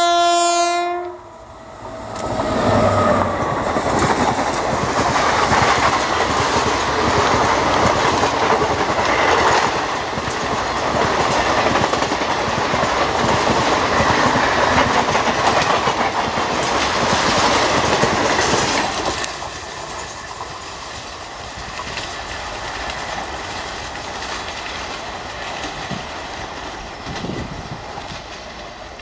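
WAP-7 electric locomotive's horn sounding and cutting off about a second in, then the express's coaches rushing past at high speed with a loud clatter of wheels on the track. After about 19 seconds it drops to a quieter, fading rumble as the train recedes.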